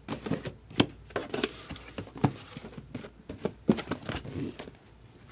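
Trading-card hobby boxes being handled on a table: irregular taps, knocks and rustling of cardboard and wrapping, settling down near the end.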